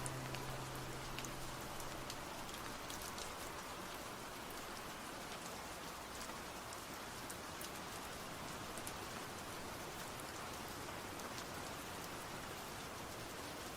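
Rain sound effect on its own: a steady patter of rain with scattered individual drops ticking.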